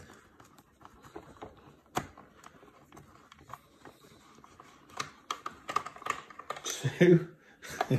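Small screwdriver unscrewing the screws of a plastic compressor casing: scattered light clicks and taps of the tool and the hard plastic case being handled, busier in the second half with a louder cluster about seven seconds in.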